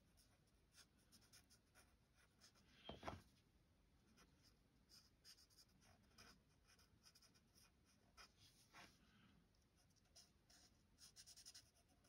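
Very faint scratching of a felt-tip marker colouring on card stock, in short, scattered strokes. There is a slightly louder bump about three seconds in and a quick run of strokes near the end.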